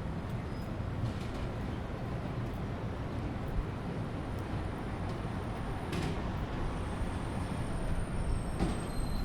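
City street traffic: a steady low rumble of passing vehicles, with two short hisses about six seconds in and again near the end.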